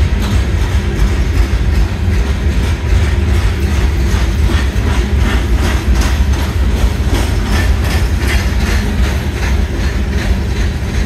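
Loaded coal hopper cars rolling past on the rails: a steady, heavy low rumble of steel wheels, with a rapid run of clickety-clack as the wheels cross rail joints.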